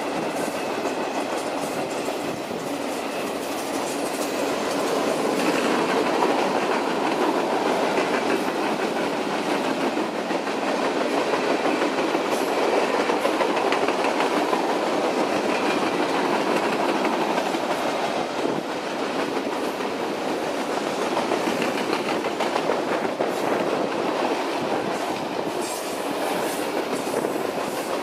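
BNSF mixed freight train's cars rolling steadily past, a continuous rattle of steel wheels on rail with a close, rapid clicking of wheels over the track.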